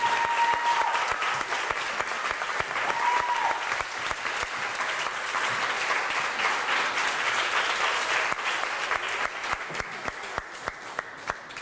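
Audience and dancers applauding, thinning to scattered separate claps near the end.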